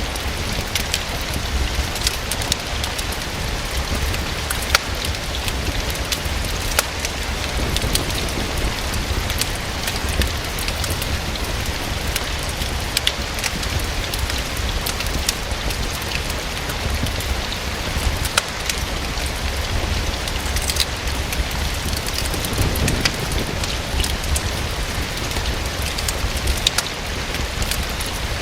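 Steady rain falling against a window, with scattered sharp pops and crackles from a wood fire.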